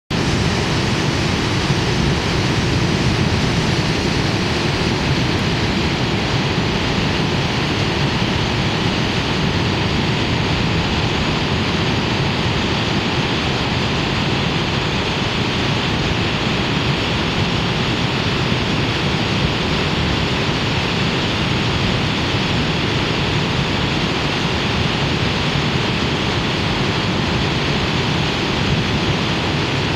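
Waterfall: a steady, loud rush of falling water, even throughout.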